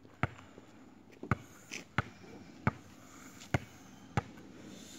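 A basketball dribbled on an asphalt driveway: six sharp bounces, a little under a second apart.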